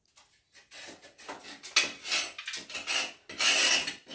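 Hand scraper scraping at a tiled wall in a run of uneven strokes, the longest and loudest near the end.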